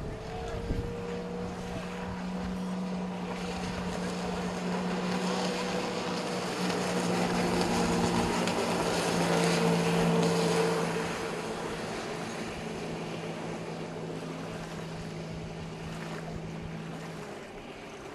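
Engine of a small watercraft on a lake running steadily, growing louder to a peak about ten seconds in and then fading away; the engine note stops shortly before the end.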